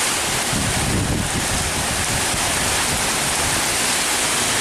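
Heavy rain with strong wind: a steady dense hiss, with gusts buffeting the microphone in a low rumble about a second in.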